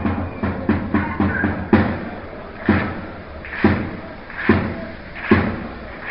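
A supporters' drum beaten in the stands with a group of fans chanting. Quick beats for about the first two seconds, then heavy single beats about once a second.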